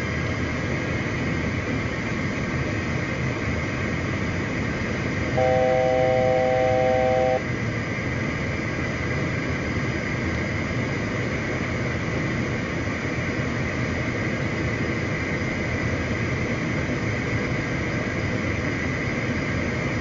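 Steady flight-deck noise of a CRJ700 on approach, a constant rush of airflow and engine hum. About five seconds in, a steady three-note tone sounds for about two seconds, like a cockpit aural alert.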